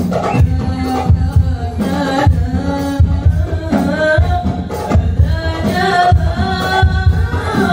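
A group of young men singing sholawat, Islamic devotional songs, through microphones and a PA, over a steady low drum beat.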